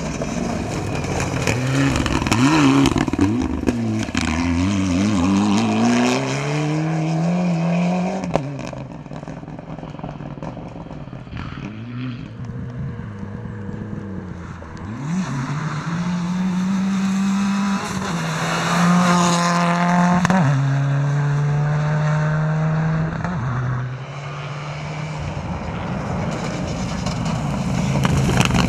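Rally car engines at full throttle, revving up and dropping sharply several times in quick succession through the gears, then a steadier run with a sudden drop in pitch as a car goes by.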